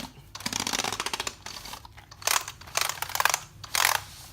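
A cleaning sponge is rubbed across computer keyboard keys. First comes a quick run of key clicks and rattles, then four or five separate scrubbing strokes over the keys.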